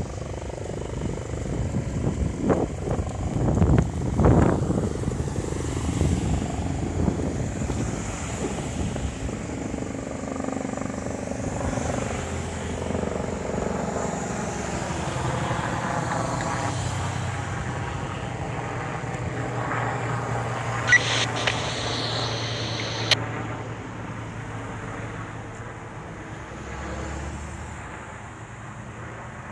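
Medical helicopter flying overhead, a continuous rotor and engine drone that is loudest in the first few seconds and slowly fades toward the end. Two short sharp clicks come about two-thirds of the way through.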